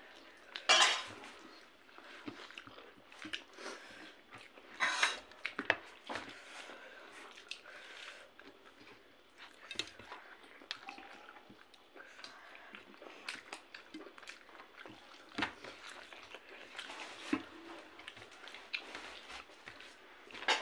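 Eating sounds of people eating rice and curry by hand: wet chewing and mouth noises with scattered clicks and scrapes of fingers and food on metal plates. The loudest bursts come about a second in and again around five seconds.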